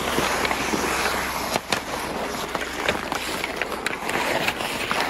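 Ice hockey skates scraping and carving on outdoor ice, with several sharp clacks of sticks striking the puck and each other.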